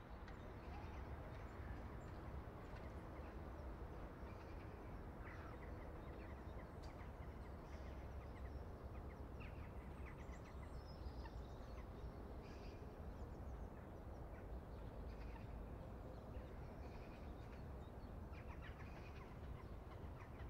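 Faint outdoor ambience: a steady low rumble with occasional short bird chirps.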